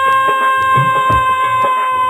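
Instrumental intro of a Hindi devotional bhajan: one long held melodic note over a steady hand-drum beat.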